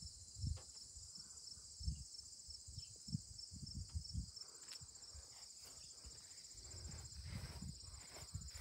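Insects chirping in a steady, fast, even pulsing trill at two high pitches at once, fairly faint, with soft low thumps now and then.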